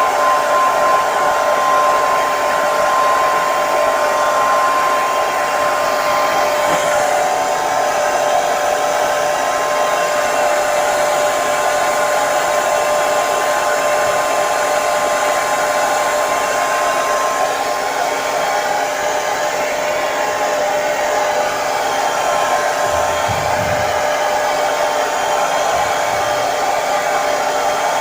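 Hair dryer running steadily: a continuous blowing hiss with a steady motor whine.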